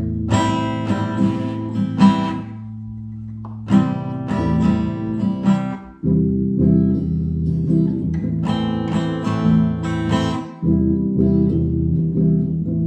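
Acoustic guitar being strummed in a simple pattern: groups of quick strokes with the chord ringing on between them, played by a beginner just learning a G chord.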